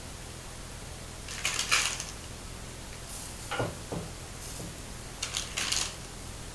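Raw mutton pieces being pressed and arranged by hand in a large earthenware clay pot: a few short bursts of wet handling and the meat rubbing and knocking against the pot's sides.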